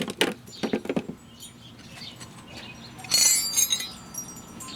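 Steel wrenches clinking against each other and against a padlock as they are handled and fitted onto the shackle: a few sharp clicks at first, then about three seconds in a louder cluster of ringing metallic clinks.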